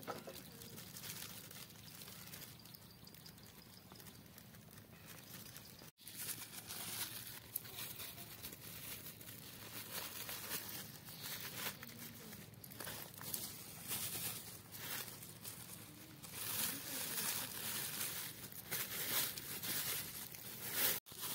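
Thin plastic bag filled with beaten egg crinkling and rustling in irregular crackles as it is handled, twisted and knotted shut.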